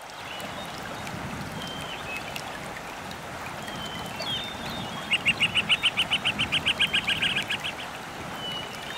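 Outdoor countryside ambience: a steady hiss with short, high bird chirps, and a little past halfway a rapid run of about twenty high, repeated notes at about eight a second from a bird.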